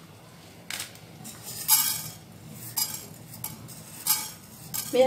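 Whole spices, fenugreek seeds among them, tipped from a plastic plate into a dry nonstick frying pan, landing on the pan in about four short clattering bursts, the loudest a little under two seconds in.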